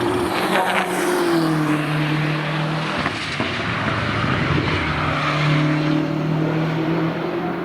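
BMW M6 GT3's 4.4-litre twin-turbo V8 running at speed on track. Its note drops in pitch about a second in and then holds fairly steady, over a haze of tyre and wind noise.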